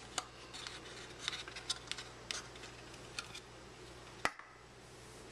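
Hands handling a stack of thick trading cards and their black box: light clicks and ticks of cards and box, with one sharper click about four seconds in.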